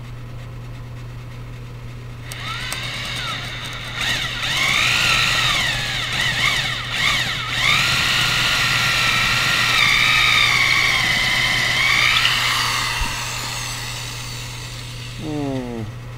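Power drill boring a long bit down through the wooden top plate of a wall. The motor whine starts about two seconds in, rises and dips in pitch as the bit loads and frees for about ten seconds, then winds down, with a few short bursts of the drill near the end.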